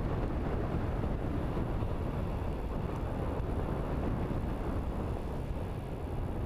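Steady rush of wind on the microphone of a camera riding on a moving e-bike, with road noise, even and unbroken with no distinct motor whine.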